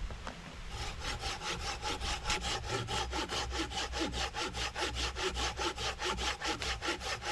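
Handsaw cutting Tree of Heaven (ailanthus) wood in quick, even strokes, about five or six a second, with a faint ringing from the blade; the strokes start about a second in.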